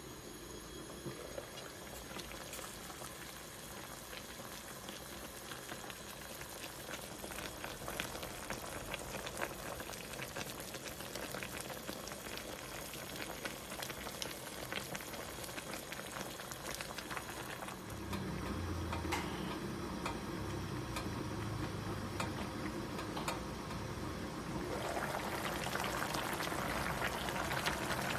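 Pickled-vegetable hotpot broth bubbling at a full boil in an uncovered pan, a steady crackling bubble that grows louder, with a deeper rumble joining about two-thirds of the way through.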